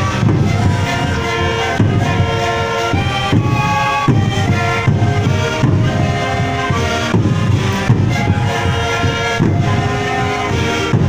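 A sikuri ensemble playing together: many siku panpipes sounding held, breathy notes in chorus over a steady beat on a large bombo drum.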